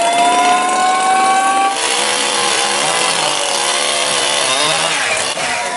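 Chainsaw running at high revs, its note slowly rising. About two seconds in it bites into a tree trunk and the sound turns rough and wavering under the cutting load, then clears again near the end as the saw runs free.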